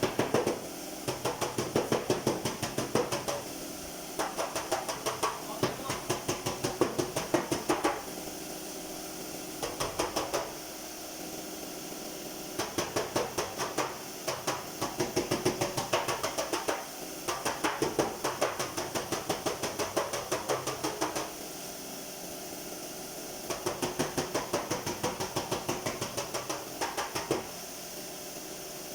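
A body hammer tapping out a dent in a car door's sheet-metal panel, in quick bursts of rapid strikes with short pauses between them, over a steady hiss.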